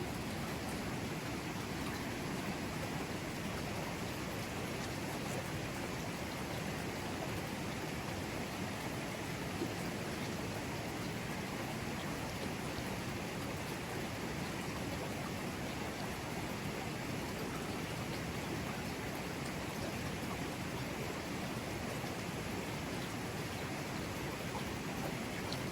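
Mountain river flowing over rocks: a steady, even rush of water that holds unchanged throughout.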